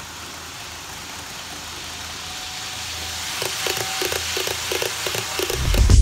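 HO-scale model of the Series 923 'Doctor Yellow' Shinkansen approaching and passing on its track: a rushing noise that grows steadily louder, with regular clicks of the wheels over the rail joints, about five a second, from about halfway in. Music with a heavy beat comes in near the end.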